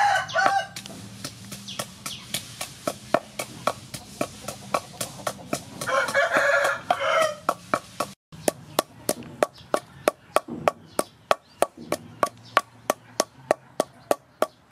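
Wooden pestle pounding dried chilies in a wooden mortar, a steady knocking at about two to three strokes a second. A rooster crows twice, once at the very start and again about six seconds in.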